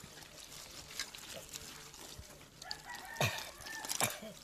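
A rooster crowing, one drawn-out call starting about two and a half seconds in, with two sharp knocks during it. Under it is the soft sloshing of chopped taro stalks being rubbed in water in a metal bowl.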